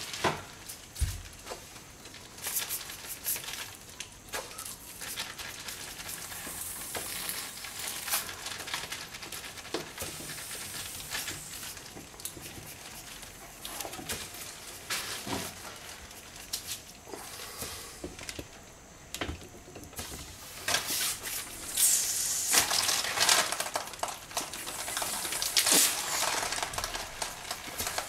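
Cable- and bladder-rigged animatronic puppet head being worked, giving irregular clicks over a crackly, hissing rustle. The hissing grows louder in stretches about two-thirds of the way through.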